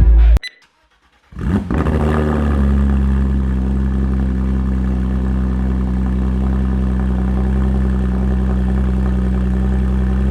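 Porsche 911 GT3 RS (991.2) 4.0-litre flat-six on its stock exhaust starting up about a second in, with a brief flare as it catches. It then settles into a steady idle.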